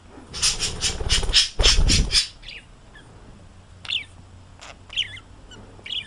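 Parrot calling: a fast run of about nine harsh squawks in the first two seconds over a low rumble, then a few short, falling chirps about a second apart.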